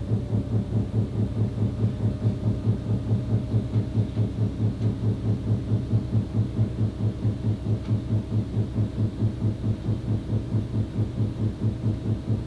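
Loud, even, rapid banging inside a wall, about four to five low beats a second, over a faint steady hum.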